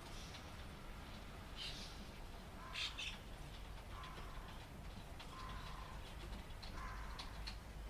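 Rain falling over a steady low traffic rumble, with scattered drip-like ticks. Several short high calls stand out, the loudest about three seconds in.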